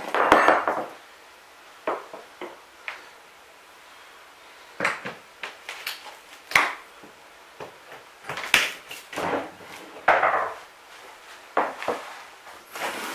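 Claw hammer prying up a rotten plywood subfloor panel: irregular cracks, creaks and knocks of the wood giving way and shifting, with the clatter of metal hand tools against the floor.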